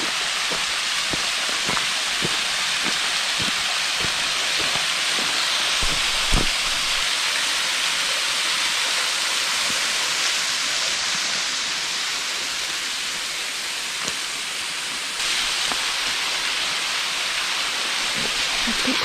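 Waterfall pouring steadily: a constant rushing hiss with scattered small splashes through it. The sound changes abruptly about fifteen seconds in, as the water is heard from a new spot.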